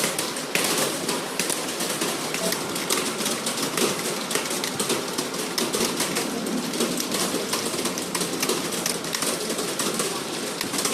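Many computer keyboards typed on at once in a typing test, a dense unbroken clatter of keystrokes.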